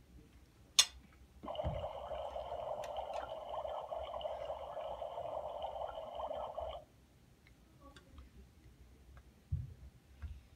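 A sharp click of a toy button being pressed, then the toy kitchen stove's electronic sound effect from its small speaker: a tinny hiss with a thin steady whistle over it, lasting about five seconds and cutting off suddenly. A few soft knocks of plastic toys follow near the end.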